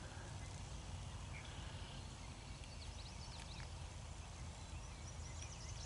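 Quiet outdoor ambience with a low steady rumble and a few faint, short bird chirps, mostly around the middle.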